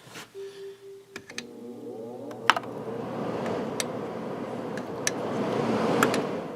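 Fan motor of a Fedders-built 8000 BTU Climatrol window air conditioner, a Samsung motor, starting up: a brief steady hum, then a rising whine as it spins up and the rush of air from the fan builds and holds, easing off near the end. A few sharp clicks sound over it.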